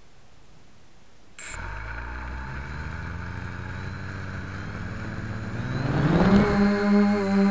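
Brushless motors and propellers of a Hoverthings Flip Sport quadcopter, heard through its own onboard camera: they start suddenly about a second and a half in and spin steadily at idle. Near the end a rising whine comes as the throttle is pushed up for takeoff, then the pitch holds steady and louder.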